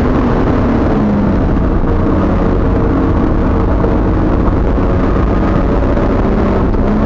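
Race car engine and tyre noise heard from inside the stripped, roll-caged cabin while driving on track. The engine note drops a little about a second in, then holds steady.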